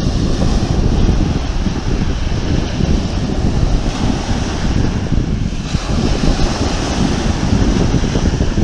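Sea waves washing and breaking, with strong wind buffeting the microphone.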